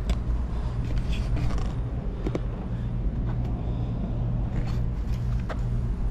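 A steady low hum with a few faint scattered clicks.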